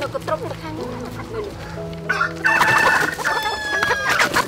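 Chickens clucking, then a rooster crows loudly about halfway in, one long call of nearly two seconds that falls slightly in pitch at the end.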